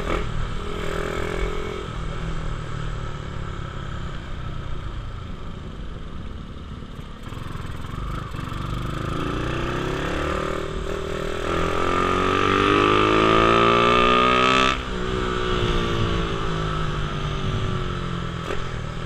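Small motor scooter engine running under way. Its pitch climbs steadily for several seconds as the rider accelerates, then drops suddenly when the throttle is closed about fifteen seconds in, and falls away.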